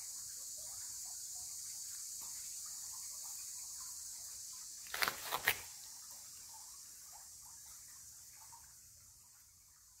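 Quiet outdoor ambience: an even high hiss, broken about five seconds in by three quick sharp clicks.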